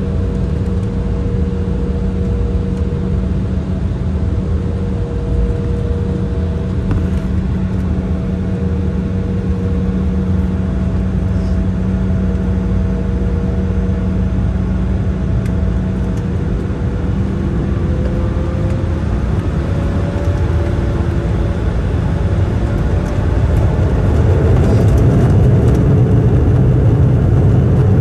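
Cabin noise of an Embraer 175's GE CF34-8E turbofan engines, heard from a window seat while taxiing: a steady low hum with a few steady whining tones. From about two-thirds of the way in, a whine rises in pitch and the rumble grows louder as the engines spool up on the runway.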